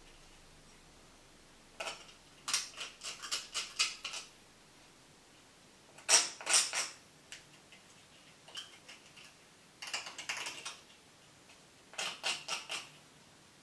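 A small knife blade scraping burrs off the hacksaw-cut edge of an Air Wick air freshener's black plastic casing, in several short runs of quick scraping strokes with pauses between.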